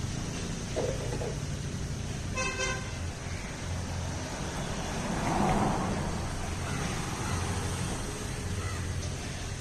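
Steady low rumble of outdoor background noise like road traffic, swelling louder for a moment near the middle, with one short horn-like toot about two and a half seconds in.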